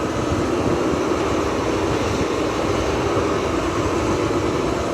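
Excavator engine running steadily under load, a constant low mechanical drone.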